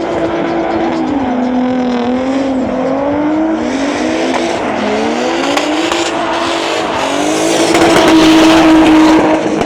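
Drift car's engine revving up and down several times and then held high and steady near the end, with the rear tyres squealing as the car slides.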